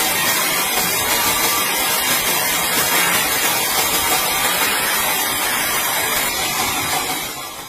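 Sawmill saw and machinery running steadily as a timber slab is sawn, a loud continuous hiss-like noise that fades out near the end.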